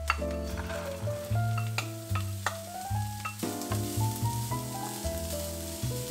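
Chopped green beans dropping into hot oil in a nonstick pan and sizzling, with a wooden spatula stirring and scraping them; a sharp clatter at the start as they go in. Background music plays throughout.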